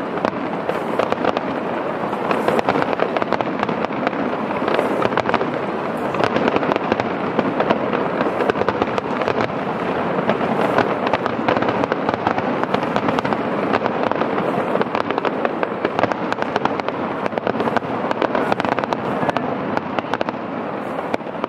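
Aerial firework shells bursting in a dense, unbroken barrage of rapid bangs and crackles.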